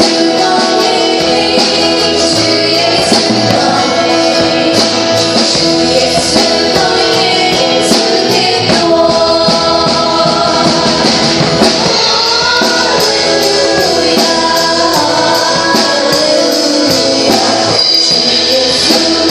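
Live worship band playing a song with a group of voices singing, and a tambourine hitting on the beat about twice a second over the instruments.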